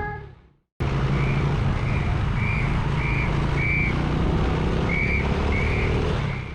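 Street traffic with engines running steadily, and a short, high beep repeating about every half second, skipping a beat or two midway.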